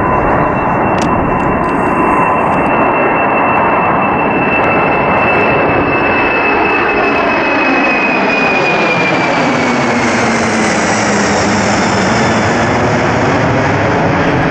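Four jet engines of a Boeing 747 at takeoff thrust as it climbs out directly overhead: loud, steady jet noise with a high engine whine that slowly drops in pitch as the aircraft passes and moves away.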